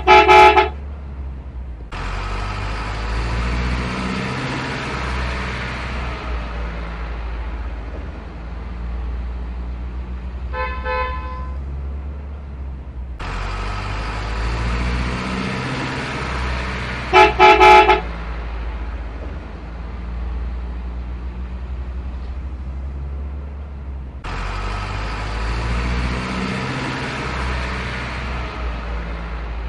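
Truck sound effects: a low diesel engine drone runs throughout. A loud horn sounds in a quick run of honks at the very start and again about 17 seconds in, with a softer honk about 11 seconds in. A hiss starts suddenly three times and fades over about four seconds each time.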